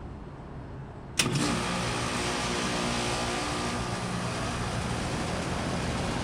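2019 Rheem Classic RP14 heat pump coming out of defrost: about a second in, the reversing valve shifts with a sudden loud whoosh of refrigerant. The unit then runs on with a steady rushing noise and hum.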